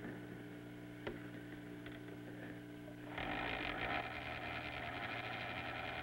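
Film projector starting up about three seconds in and running with a steady, rapid mechanical clatter, over a low electrical hum.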